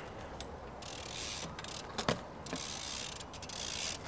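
BMX bike rolling on concrete, its rear hub's freewheel ratcheting as it coasts, with a single sharp knock about two seconds in.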